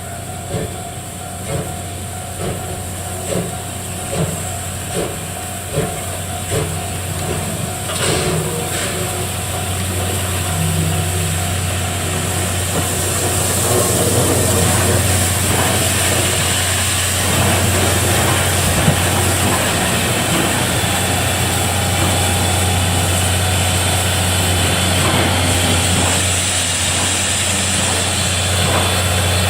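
C57 180 steam locomotive during shunting: a steady low hum with short regular beats a little faster than one a second for the first seven seconds or so, then a loud, steady hiss of steam building from about twelve seconds in.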